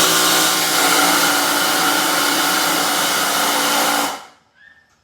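A 12V cordless impact driver driving a large fastener into timber, its rapid hammering blending into one steady, loud buzz. It runs for about four seconds, then stops abruptly.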